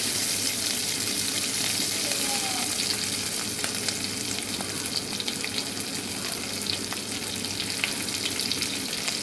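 Onion and green capsicum chunks sizzling in hot oil in a nonstick pan over a high flame: a steady hiss with scattered small crackles. A silicone spatula stirs them at first.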